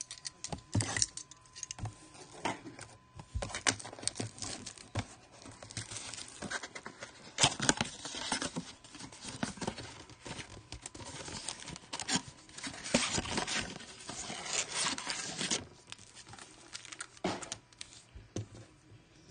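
A Panini Prizm basketball blaster box, a cardboard retail box of trading-card packs, being torn open by hand and handled: irregular ripping, crinkling and rustling, busiest in the middle, with one more short rustle near the end.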